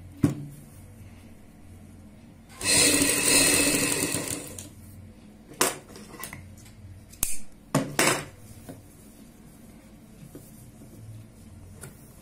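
Sewing machine stitching piping onto a garment neckline: a sharp click just after the start, one longer run of stitching about two and a half seconds in that fades over two seconds, then a few short bursts of stitches between about the sixth and eighth second.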